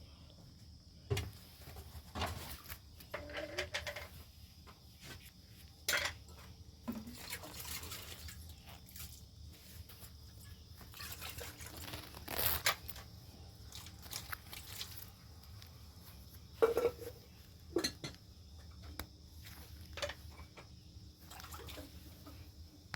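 Irregular knocks, clinks and rustles, with the sharpest clacks about a second in, at six seconds and near seventeen seconds, over a faint steady low hum.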